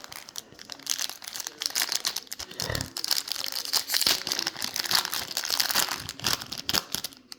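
Foil trading-card pack wrapper being torn open and crinkled by hand: a dense run of crackling and crinkling.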